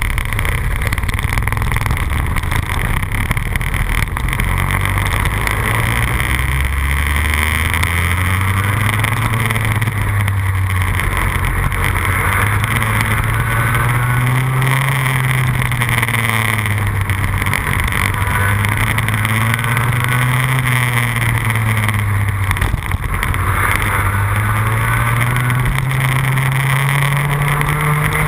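Two-stroke kart engine, heard from on board, running hard with its pitch climbing and falling several times as the kart accelerates along the straights and backs off for the corners.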